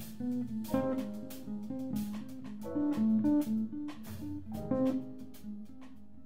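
Jazz combo playing live: plucked electric bass and guitar notes with light cymbal strokes.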